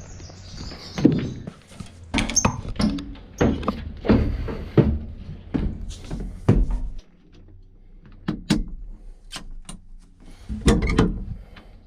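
A series of irregular knocks, clunks and clicks at uneven spacing over a quiet background, with a louder cluster near the end.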